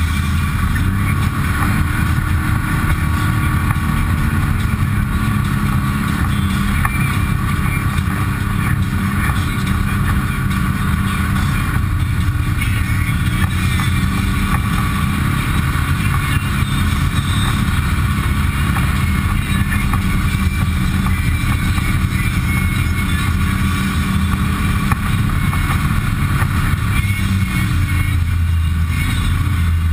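Side-by-side UTV engine running at a low, fairly even trail speed, heard from inside the cab, its pitch rising and falling a little with the throttle.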